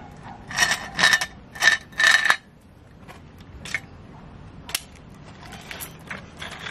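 Toy roll-off garbage truck's container sliding down off its tilted rails onto concrete: four quick rattling scrapes in about two seconds, then a few light clicks and knocks as the toy pieces are handled.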